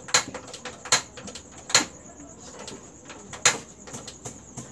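Metal cookware clanking: small frying pans knocking on a stainless gas stove top as they are handled, four sharp knocks with smaller clicks between.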